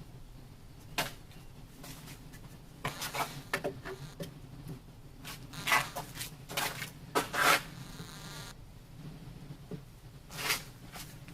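Scattered knocks and clatters, irregularly spaced, with a brief squeak between the sixth and eighth seconds.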